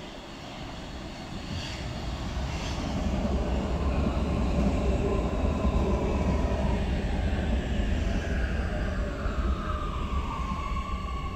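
Oslo Metro MX3000 train pulling into the platform: the low rumble of wheels and running gear swells as it draws alongside. In the last few seconds a whine falls steadily in pitch as the electric motors brake the train to a stop.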